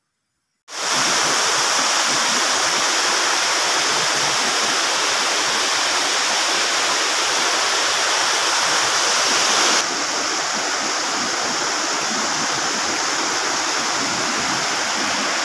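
Stream water rushing over rocks through small rapids: a steady, loud rush that starts abruptly about a second in and drops slightly in level about ten seconds in.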